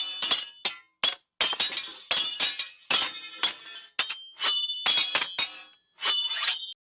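Sword sound effects: a series of metal blade clashes, about one a second, each a sharp hit followed by a short high ringing.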